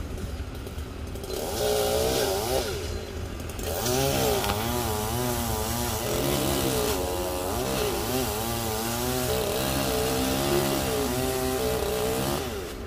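Petrol chainsaw running high up in a sao tree, idling briefly and then revving up about a second in. It holds high and wavers up and down under load as it cuts the face notch into the trunk, with a short drop in revs a few seconds in.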